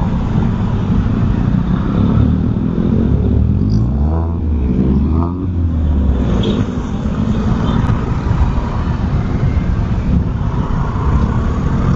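Motorcycle running on the road at speed, its engine and wind noise on the rider's microphone dense and steady. The engine pitch sweeps down and back up briefly about four to five seconds in.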